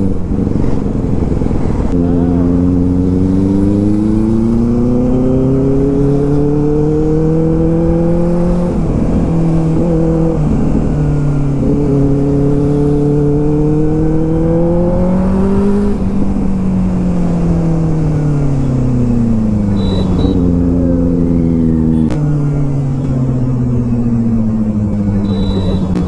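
Benelli TNT 600i's inline-four engine through an IXIL aftermarket exhaust, ridden under way. The revs climb in long pulls that break off at shifts, then fall away steadily through the last third as the bike slows.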